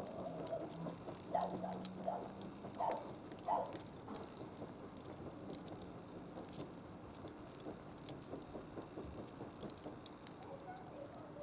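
Small wood fire burning in a barbecue grill, crackling with irregular small pops and ticks, plus a few louder short sounds in the first few seconds.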